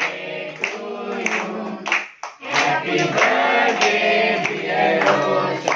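A small group of people singing together while clapping along, with a short break in the singing about two seconds in.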